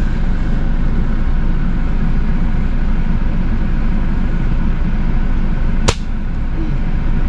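A single sharp crack of a Crosman air rifle shot at a dove, about six seconds in, over a steady low rumble.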